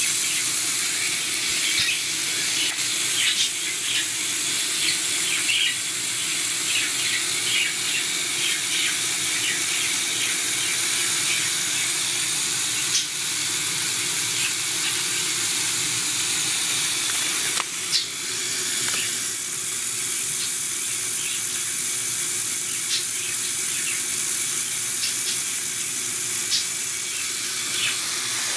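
Electric drive motors and plastic gear trains of a Lego Technic tracked robot running steadily, a hissing whir with scattered small clicks from the gearing and tracks. It starts abruptly.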